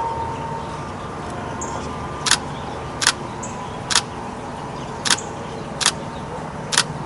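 Canon 90D DSLR shutter firing single frames: six sharp clicks at uneven gaps of about a second, over a steady outdoor background.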